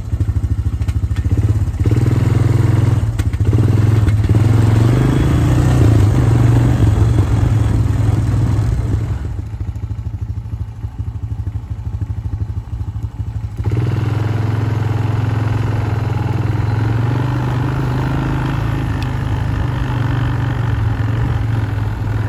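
Four-wheeler (ATV) engine running under way across rough grass. It drops quieter for about four seconds partway through, then picks back up.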